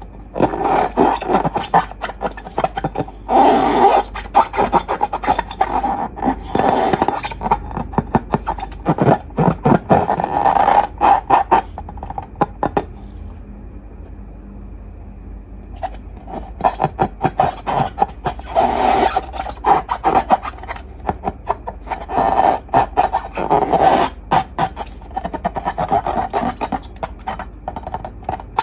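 Slime being squished and worked by hand: sticky crackling and scraping, in two long stretches with a pause of a few seconds in the middle.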